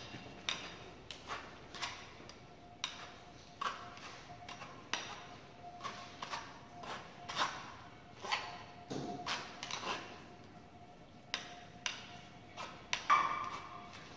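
Metal ladle scraping and clinking against a metal mesh sieve as mashed potato is pressed through it: irregular light clicks and scrapes, about one or two a second.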